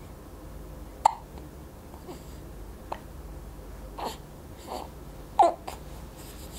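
Four-week-old baby hiccuping: about five short, sharp hiccups at uneven intervals, the loudest about a second in and about five and a half seconds in.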